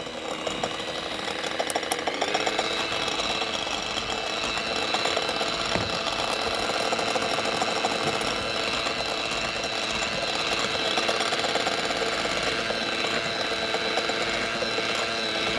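Electric immersion blender with a whisk attachment running steadily, its motor whining as the whisk beats egg yolks and sugar in a glass bowl. The whine grows fuller about two seconds in.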